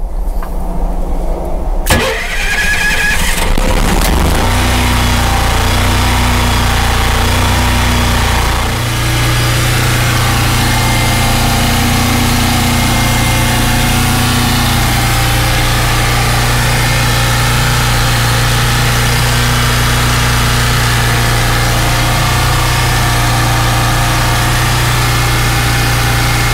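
Kohler 5E 5 kW gasoline marine generator being started: a click about two seconds in, a short stretch of cranking, and the engine catches at about four seconds. It then keeps running with a steady hum, settling just after eight seconds, showing that it now stays running instead of shutting off.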